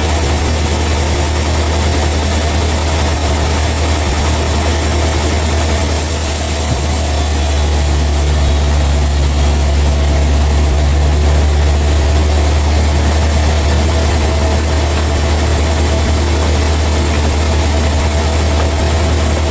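Engine idling steadily with a deep, low hum that grows slightly louder about seven seconds in.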